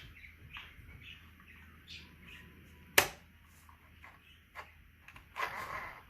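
Small clicks and handling noises from a child's sewing machine being adjusted, with one sharp click about halfway through.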